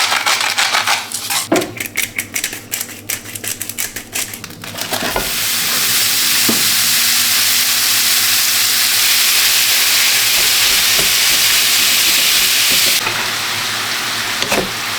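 Beef mince frying in a hot pan with olive oil and rosemary. It crackles and spits for the first few seconds, then from about five seconds in gives a loud, steady sizzle that eases slightly near the end.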